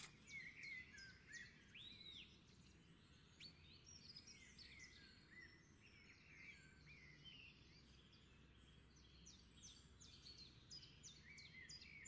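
Near silence with faint, scattered bird calls: short chirps and whistled glides, a little more frequent near the end.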